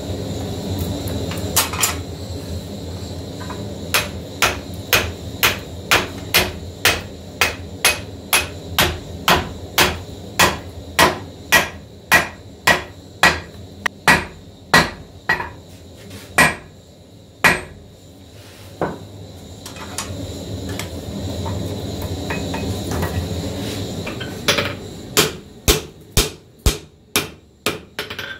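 Hand hammer striking a red-hot 2 kg sledgehammer head being forged into a flatter, steel on hot steel over the anvil, in a steady run of about two blows a second, then a pause and a quicker run of blows near the end. A steady low hum sounds underneath.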